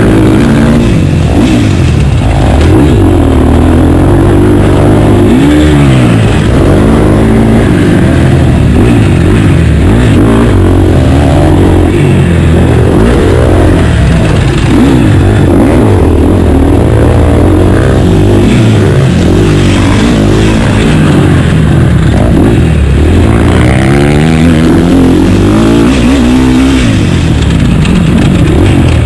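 Two-stroke motocross bike's engine running hard, close to the microphone, its pitch rising and falling again and again as the throttle opens and closes and the gears change.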